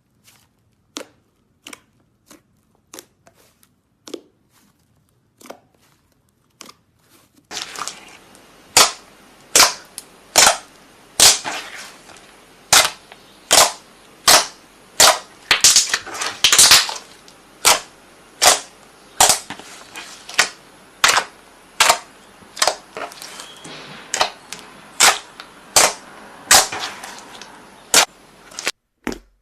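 A long series of sharp pops: a few faint ones spaced about a second apart at first, then from about seven seconds in a much louder run of pops, roughly one every three-quarters of a second, over a steady hiss.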